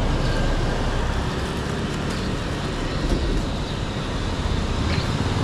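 Steady street traffic noise from passing vehicles, with a continuous low rumble.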